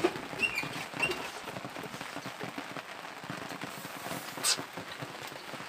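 Rain pattering steadily, with a sharp click about four and a half seconds in and two short high squeaks near the start.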